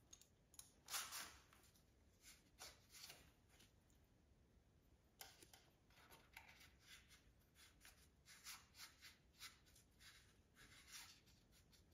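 Faint scattered rubbing, scraping and light clicks of hands working a rubber timing belt around the engine's idler and tensioner pulleys.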